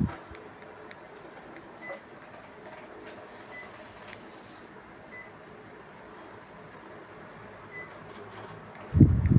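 Steady hum of a running Panasonic room air conditioner cooling at its 16 °C setting, with a short, heavy low thump about nine seconds in.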